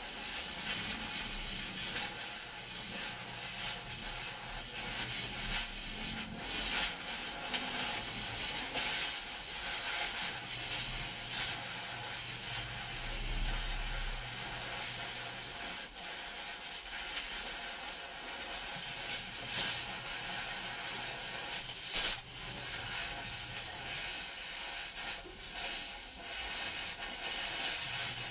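Oxy-fuel cutting torch hissing steadily as it cuts through a rusty steel floor plate, with scattered crackles from the cut and one sharp crack about three-quarters of the way through.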